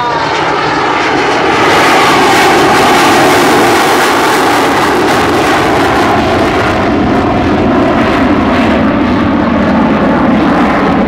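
Loud jet engine noise from an F-16 Fighting Falcon climbing through its demonstration: a continuous rushing sound that swells about a second and a half in, its pitch slowly falling.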